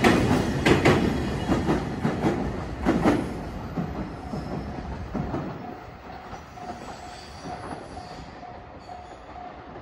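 The last wagons of a freight train clatter past over the rail joints, then the sound fades as the train rolls away. From about five seconds in, a level crossing bell rings faintly, about two strokes a second.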